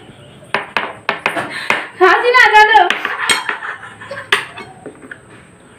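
Metal spoons clinking and scraping against glass bowls and plates: a quick run of sharp clinks in the first two seconds, then a couple of single clinks later. A brief voice sound about two seconds in.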